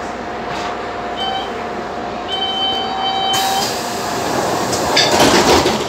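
Athens Metro Line 1 electric train coming to a stop at a station, with a steady whine and a higher squeal as it brakes. At about three and a half seconds a sudden loud air hiss comes as the doors open, and a louder rush of noise follows near the end.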